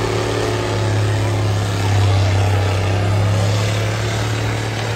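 Cab-over semi truck's diesel engine under full load, pulling a weight-transfer sled down a dirt pulling track. It is a steady low drone that grows louder about two seconds in and eases slightly near the end.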